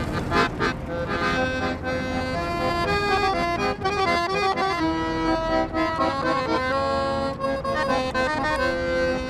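Street musicians start playing a tune: held notes over changing chords, with a few sharp strikes in the first second.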